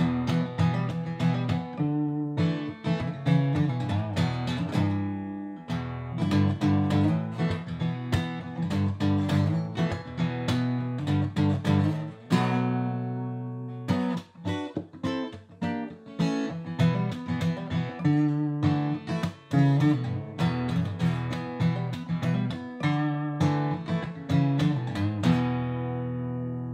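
Guitar background music, picked and strummed, with a chord held about halfway through and a last chord left ringing and fading near the end.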